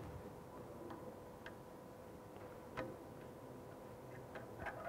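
Faint, scattered clicks of a screwdriver working a brass bolt on a small electric water pump's casing, the clearest about three seconds in, over a faint steady hum.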